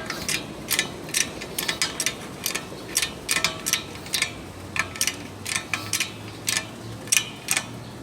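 Sharp metallic clicks, two or three a second with irregular gaps, from a tool being worked to put pressure on an automatic transmission's clutch pack before its retaining ring is removed.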